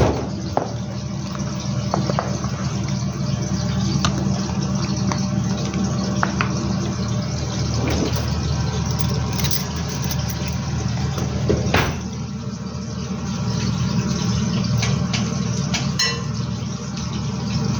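A steady low mechanical hum, with scattered light clicks and knocks, and a ringing clink like crockery or glass near the end.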